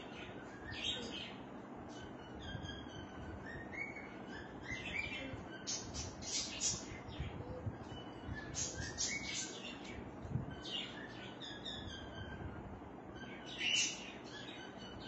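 Birds chirping in short calls that recur every second or two, some with quick rising notes, over a low steady hiss.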